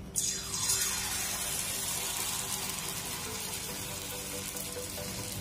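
Batter-coated potato pieces deep-frying in hot oil in a steel kadhai, sizzling and bubbling. The sizzle starts suddenly as the first piece goes in, then holds steady.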